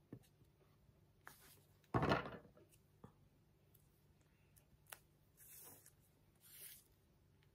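Quiet handling sounds while crafting: light taps and paper rustles as a glue bottle and card pieces are handled on a wooden table, with one louder knock about two seconds in.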